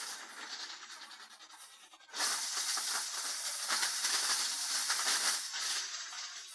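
Drum wood chipper running on its trial run, with a loud rushing, hissing noise that starts suddenly about two seconds in and eases off near the end.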